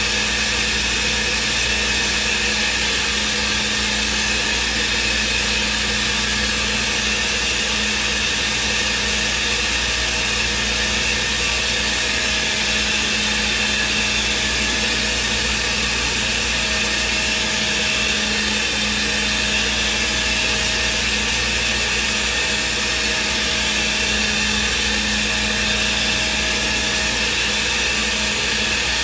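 Thermwood CNC router spindle running steadily as it machines a block, a constant loud hiss with a steady hum beneath it.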